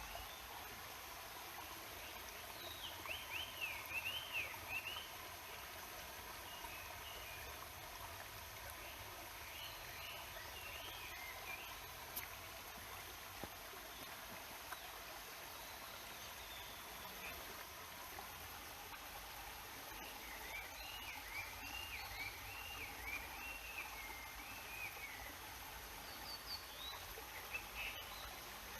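Steady rushing of a mountain river, with a small songbird singing quick warbling phrases about three seconds in and again around twenty seconds in, plus a few shorter calls between.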